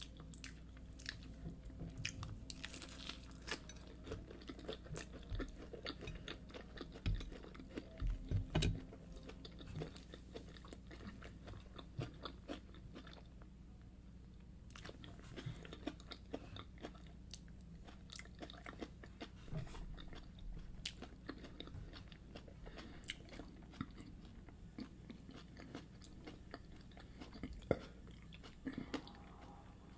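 Close-miked chewing and biting of fried yam with egg sauce: many small crunches and wet mouth clicks, with a cluster of louder bites about eight seconds in.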